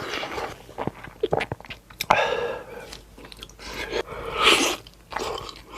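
Close-miked chewing and mouth sounds of a person eating, with irregular small clicks and a couple of longer wet bursts about two and four and a half seconds in.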